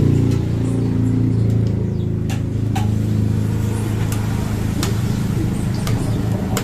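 A steady low engine drone, easing off a little just after the start, with a few light clicks over it.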